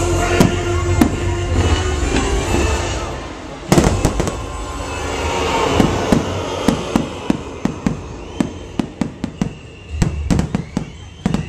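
Fireworks going off over show music. There is one loud bang a little over a third of the way in, then a quickening string of sharp pops and bangs through the second half.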